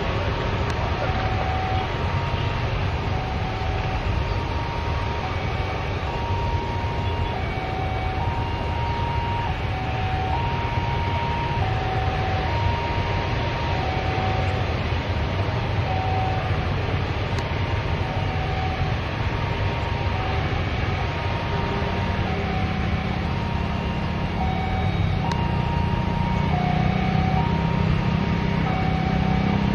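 Airbus A330 jet engines running at idle while the airliner waits on the runway, a steady rumble. A lower hum grows louder over the last several seconds.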